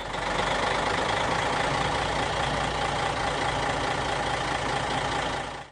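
Heavy vehicle engine idling steadily, as an added sound effect. It starts abruptly and cuts off abruptly near the end.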